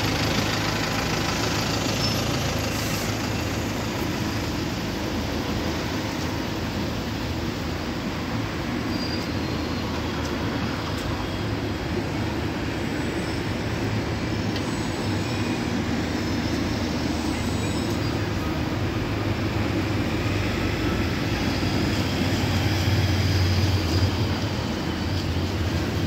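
Single-deck diesel bus idling at a stand, a steady low engine hum over street traffic noise, swelling briefly near the end.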